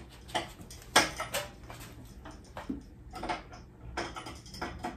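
Irregular clicks and knocks of a small tabletop Dobsonian telescope being handled as its tube rings are tightened onto the base, the sharpest knock about a second in.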